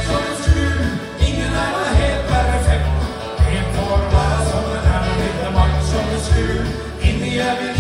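A man singing live into a handheld microphone over backing music, with a steady bass and drum beat about every three-quarters of a second.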